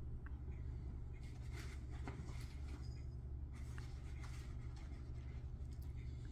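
Steady low room hum with two short spells of soft scratchy rustling, one about a second in and one near the middle.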